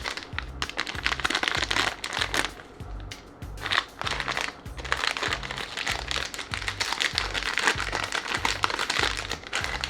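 Plastic snack bag of chips crinkling as it is handled and opened, over background music with a steady beat.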